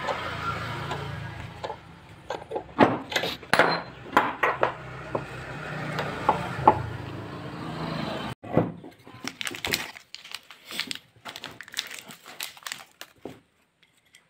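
Sharp metal clanks and clinks from working a bearing puller clamped in a bench vise to pull the bearing off an electric planer's armature shaft, over a steady low hum. After an abrupt cut a little past halfway the hum stops, leaving lighter scattered clicks of metal parts being handled.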